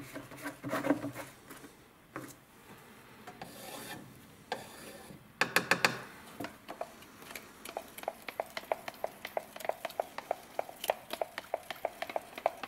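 A few clatters as small cans are handled and the wooden stir stick is picked up, then, about halfway through, the stick stirring two-component car paint in a plastic mixing cup: a steady scraping tick against the cup wall about four or five times a second.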